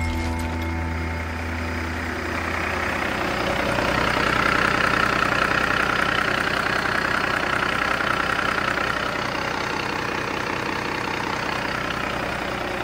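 2008 Cummins ISX 14.9-litre inline-six diesel engine idling steadily on a test stand. It gets a little louder for a few seconds in the middle.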